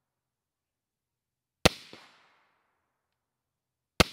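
Two suppressed rifle shots about two and a half seconds apart, the second near the end, each a sharp crack that dies away within half a second. Each is followed about a quarter second later by a fainter second crack.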